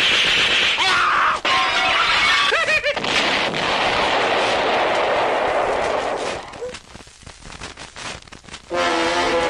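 A run of Hanna-Barbera cartoon sound effects. First a hiss and a quick string of whistle-like tones, then a long noisy explosion-like rush that fades out about six seconds in. Scattered faint clicks follow, and a short burst of music comes in near the end.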